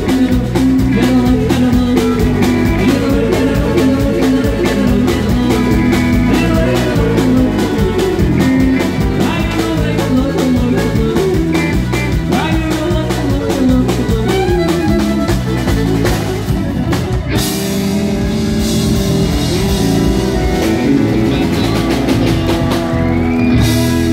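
Live country band playing on electric bass, fiddle and drums, with a steady beat. About 17 seconds in, a bright wash of noise comes in over sustained chords.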